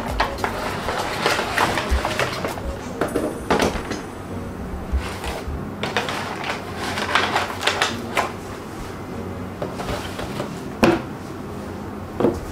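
Cardboard game box being opened and handled: the lid rubbing and scraping as it is worked off the base, rustling of the contents, and a sharp knock about two seconds before the end, with background music underneath.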